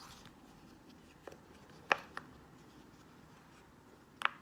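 Silicone pop-it fidget toy being handled, giving a few soft, scattered clicks, the loudest about two seconds in and another near the end.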